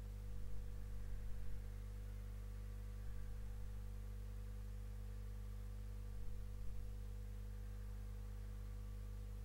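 Steady low hum with faint, unchanging tones, a little louder for a moment about a second in and again past the six-second mark.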